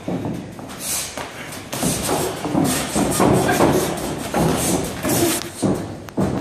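Boxing sparring at close range: padded gloves thudding on bodies and heads in irregular flurries, with feet shuffling on the ring canvas.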